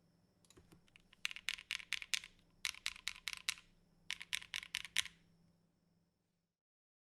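Typing on a Tofu60 mechanical keyboard with lubed, broken-in NK Cream linear switches on a polycarbonate plate and GMK keycaps. The keystrokes come in three quick runs, then the sound cuts off about six seconds in.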